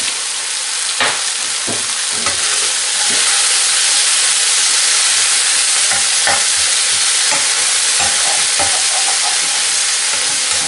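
Baby spinach sizzling in olive oil in a frying pan, a steady hiss that grows a little louder about three seconds in, with scrapes and light knocks from a utensil stirring and turning the leaves.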